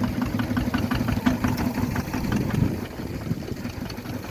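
Rice washing machine running: a steady motor hum under a quick run of small knocks and rattles that thins out near the end.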